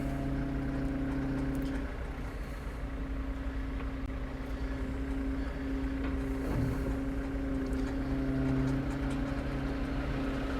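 Caterpillar 325 excavator's diesel engine idling steadily just after its push-button start.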